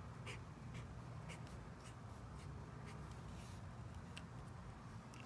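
Yellow felt-tip marker drawing short strokes on lined notebook paper: faint, irregular scratches a few times a second over a low steady hum.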